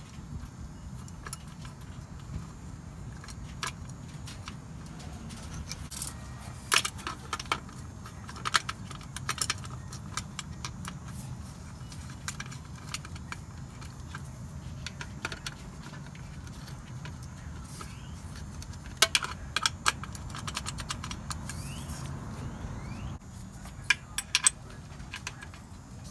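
Small metal clinks and clicks of a steel bracket and hand tools on a transmission pan bolt as a shift-cable bracket is fitted and tightened, coming in a few short clusters. A steady low hum runs underneath.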